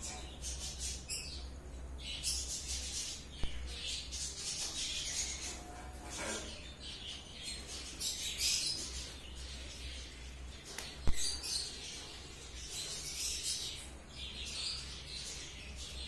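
Small birds chirping and chattering in repeated high-pitched bursts over a steady low hum, with two sharp clicks, the second one louder.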